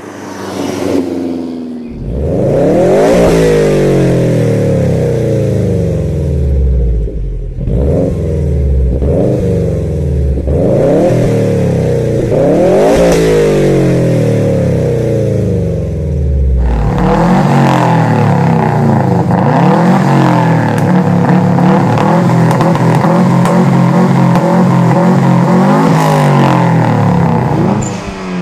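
Several loud performance-car exhausts one after another. First, a Saab 900 T16 with a 3-inch exhaust passes by, its engine note falling away. Then, abruptly, a Subaru Impreza's flat-four is revved again and again, each rev climbing quickly and dropping back more slowly; about seventeen seconds in, this gives way to another car's exhaust running steadily with small blips of throttle.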